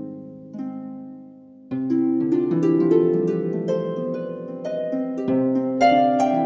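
Background music of plucked harp notes: a few sparse, fading notes, then a fuller run of overlapping notes from just under two seconds in.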